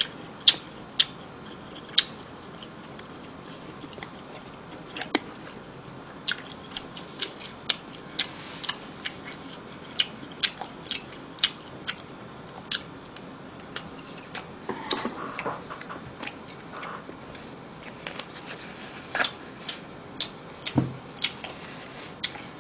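Close-up sounds of a person eating pan-fried foods: chewing and mouth smacks with scattered sharp clicks, a few every couple of seconds, and one dull thump near the end.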